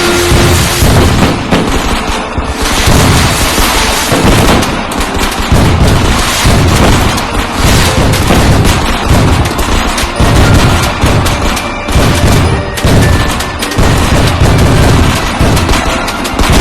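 Firecracker and fireworks sound effects: dense strings of rapid cracking bangs mixed with deep booms, going on without a break.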